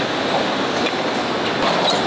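Steady factory-floor din of a tractor assembly line: an even machinery noise, with a few faint clicks of metal parts being handled.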